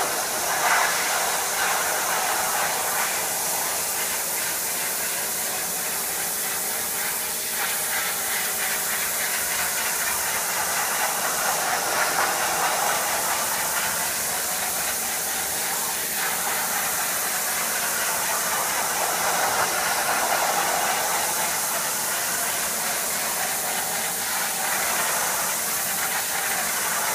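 Pressure washer jet spraying a weathered wooden lattice fence: a steady hiss that swells now and then, with a low steady hum underneath.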